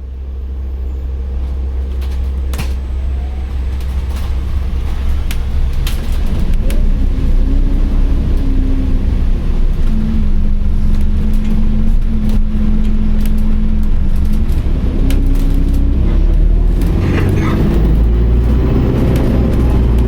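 Interior of an ADL Enviro400H City hybrid double-decker bus under way: a steady heavy low rumble with a 'Hoover' whine from the drive that holds a few steady pitches and steps between them, growing louder over the first several seconds, with rattles and clicks throughout.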